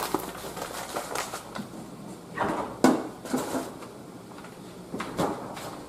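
Scattered kitchen handling sounds: a few sharp clicks and knocks with brief rustling, the loudest knock nearly three seconds in.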